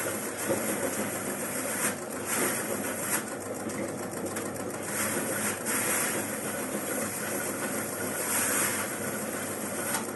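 Homemade oil palm leaf-rib stripping machine running steadily, with several swells of scraping noise as leaves are stripped from the palm ribs fed through it.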